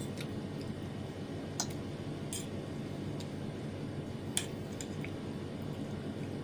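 A metal fork clinking lightly against a ceramic plate while twirling noodles: a few short, sharp clicks spread over several seconds, the sharpest about four seconds in, over a steady low hum.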